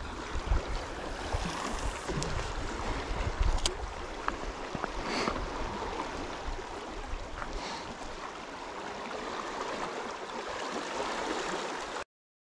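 Steady rushing of fast-flowing canal water in the California Aqueduct, with wind buffeting the microphone in the first few seconds. The sound cuts off suddenly near the end.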